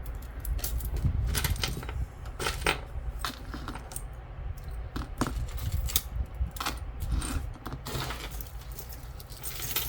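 Metal costume jewelry clinking and jangling as pieces are handled and sorted, a run of many irregular sharp clicks.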